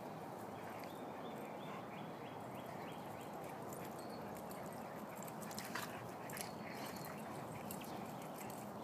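Two dogs play-wrestling on grass, with soft scuffling and mouthing sounds and a few sharp clicks a little past the middle, over a steady background hiss.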